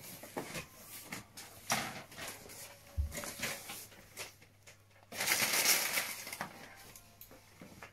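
Packaging being handled during an unboxing: scattered clicks, knocks and rustling, with one louder crinkling rustle of about a second a little past the middle.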